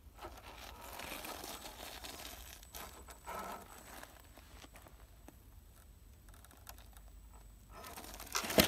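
A radio-controlled crawler truck's tyres scrabbling over loose dirt and rock, a faint crackly crunching and scraping with small clicks. A sudden loud sound comes near the end.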